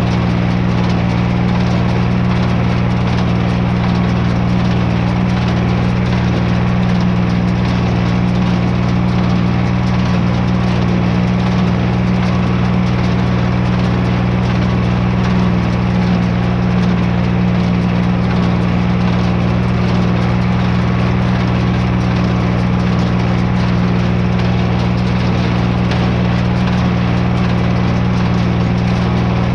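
Farm tractor engine running steadily at a constant speed, an even low hum that does not change in pitch or loudness.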